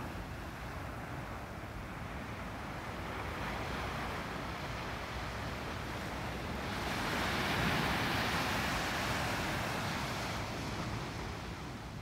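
Small ocean waves breaking and washing up a sand beach, one wave swelling louder about seven seconds in and fading out after about ten seconds, over a steady low rumble of wind on the microphone.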